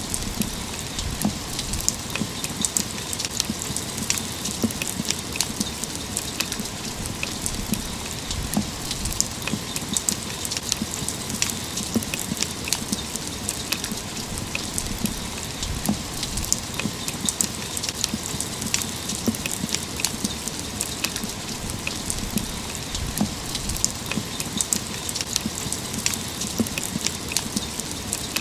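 Steady rain falling, with many sharp taps of single drops landing close by over an even hiss.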